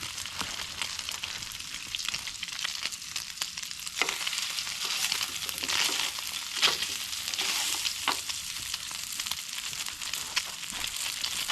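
Kahawai fillets frying in hot butter in a pan: a steady crackling sizzle with sharp spitting pops, a few of them louder.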